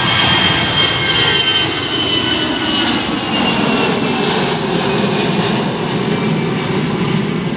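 Airliner's engines running loud and steady, with a high whine that slowly falls in pitch.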